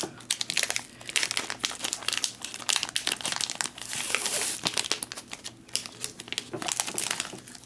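The wrapper of a Marabou milk chocolate bar crinkling and tearing as it is peeled open by hand: a run of irregular crackles, with a louder rustle about four seconds in.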